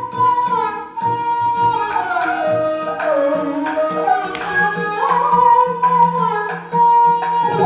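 Indian classical-style background music: a melody of held notes that slide between pitches, over steady hand-drum strokes.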